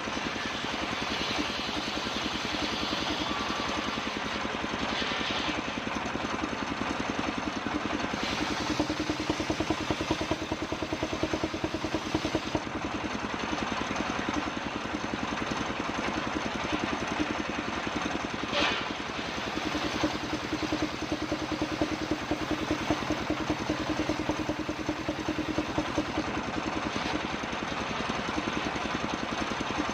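Engine powering a homemade circular sawmill, running steadily with a fast, even beat and a hum that comes and goes in stretches.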